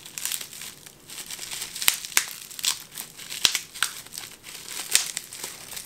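Clear plastic bag crinkling in the hands as it is worked open to unwrap a fishing lure, with many irregular sharp crackles.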